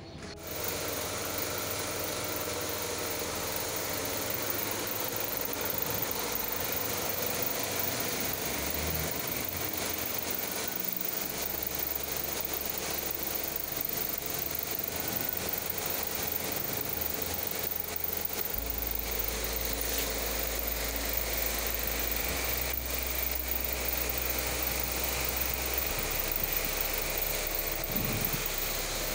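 Electric high-pressure washer's motor and pump running steadily. It comes on about half a second in.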